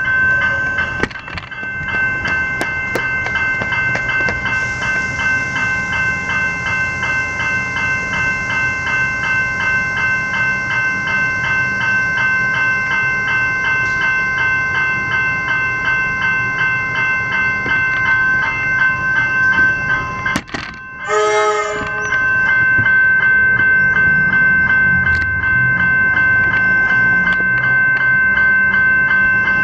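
Level-crossing electronic bells (General Signals e-bells) ringing rapidly and continuously. Under them an electric suburban train rumbles as it pulls into the station, louder in the last third, with a brief horn-like note about two-thirds of the way in.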